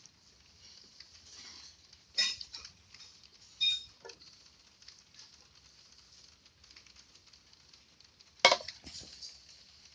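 Kitchen utensil clinking against a dish three times, the last clink the loudest, with faint scraping and stirring between.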